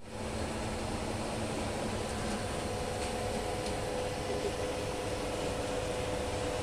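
BCA ATM machine's steady hum, an even fan-like whir with a steady tone running through it and a few faint ticks.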